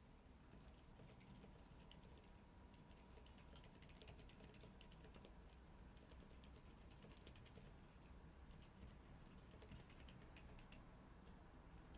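Soft, quiet typing on a Corne Cherry split keyboard with Cherry MX Silent Red (silent linear) switches and MDA keycaps: a fast, uneven run of muted key clicks, with a couple of short pauses.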